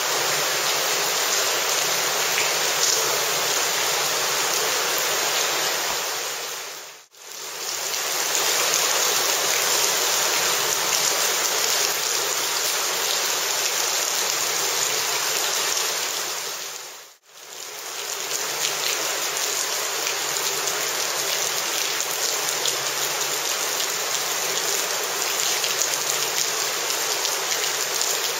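Shallow river running over gravel and stones: a steady, loud rush of water that drops out briefly twice.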